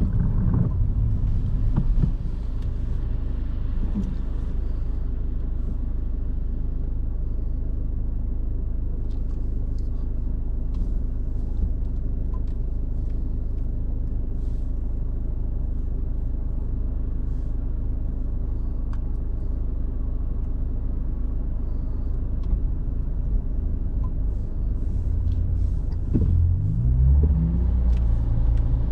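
Car engine and road rumble heard from inside the cabin: a steady low hum for most of the time, rising in pitch near the end as the car accelerates.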